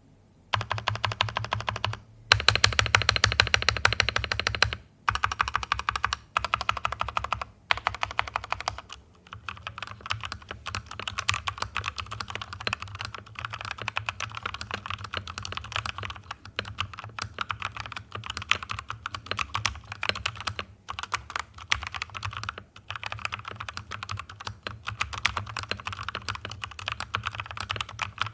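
Typing on an NYK Nemesis Helens mechanical keyboard with lubed Outemu Red linear switches. It starts with five short bursts of very rapid keystrokes and settles into steady, somewhat quieter typing about nine seconds in.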